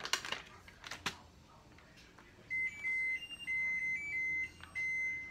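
Electronic beeper playing a short tune of high beeps, stepping between two or three pitches, starting about two and a half seconds in. Before it comes a little crinkling and clicking of the plastic cheese bag.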